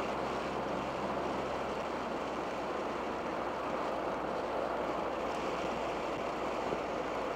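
Steady interior drone of a 1987 Dodge Daytona Shelby Z cruising at constant speed: the turbocharged four-cylinder engine's low hum under a wash of road and wind noise.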